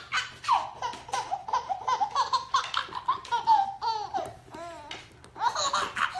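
A baby laughing in a long run of short, high-pitched laughs and squeals.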